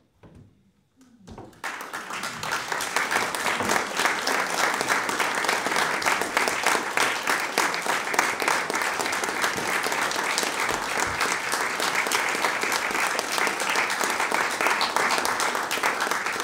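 A small audience applauding: a few scattered claps after a brief hush, swelling within about two seconds into steady, even applause.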